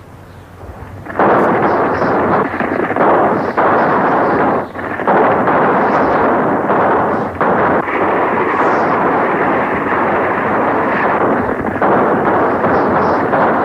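A group of horses galloping hard in a chase, a dense pounding of hooves with gunfire mixed in, heard on an old, muffled film soundtrack. It is quieter for the first second, then loud and continuous, with a brief lull a little under five seconds in.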